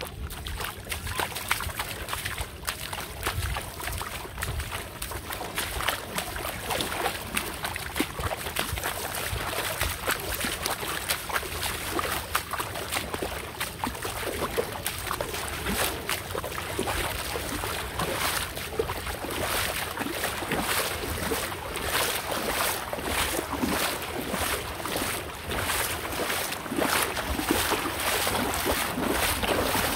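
Water sloshing and splashing as someone wades through a shallow river, the splashes falling into a regular stepping rhythm of roughly two a second from about halfway through, with wind rumbling on the microphone.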